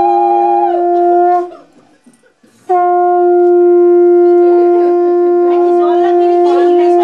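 Conch shell (shankha) blown in two long, steady blasts: the first cuts off about a second and a half in, and after a short pause a second long blast holds on. Blown at a Bengali Hindu wedding rite, the conch marks an auspicious moment.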